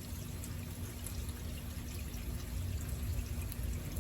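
Steady rain during a thunderstorm, with a low, continuous rumble of thunder underneath.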